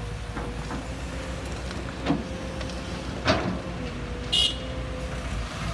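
Kobelco SK200 excavator running steadily with a constant whine while loading soil into a dump truck. There are a couple of sharp knocks about two and three seconds in, and a brief high chirp about four seconds in.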